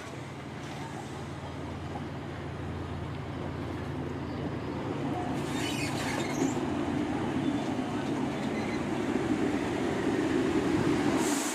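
Diesel passenger train moving at a station: a steady low engine hum under a rumble that slowly grows louder, with short hisses about six seconds in and again near the end.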